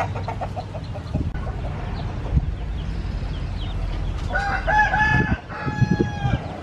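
Rooster crowing once about two-thirds of the way in, a long call broken into a few held notes, after some short clucking calls near the start.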